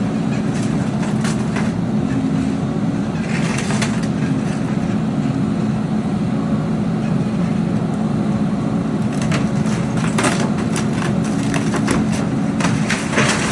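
Heavy construction machine's engine running steadily, with scattered cracking and crunching noises about three seconds in and again through the second half.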